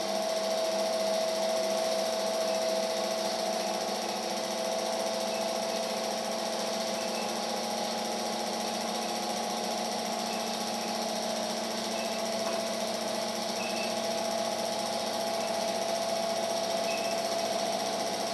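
A steady motor hum with a constant pitch.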